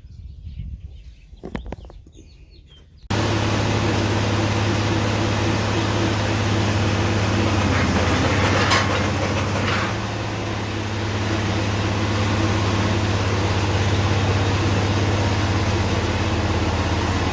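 Quiet outdoor background with faint birds, then an engine drone cuts in suddenly about three seconds in and runs steadily, with a short hiss near the middle.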